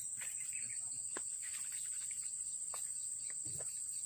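Insects droning steadily at a high pitch, with a few faint clicks and rustles.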